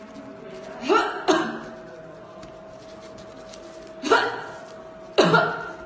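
A woman coughing in two pairs of short, forceful coughs, each with a voiced catch at its start, the pairs about three seconds apart. The cough is presented as that of a coronavirus patient, as distinct from an ordinary seasonal cough.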